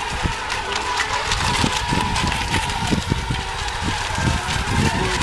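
Electric motors of radio-controlled racing boats whining on the course, a steady high tone that wavers slightly in pitch, with wind buffeting the microphone.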